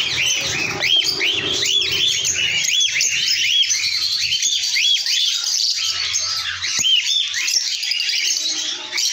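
A flock of caged lovebirds chirping continuously, many short high chirps overlapping one another. A single sharp click comes about two-thirds of the way through.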